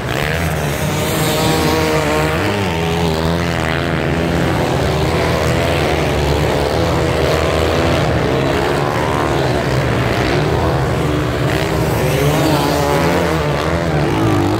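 A pack of motocross dirt bikes racing on sand, many engines revving at once and overlapping, their pitches rising and falling as riders accelerate and shift.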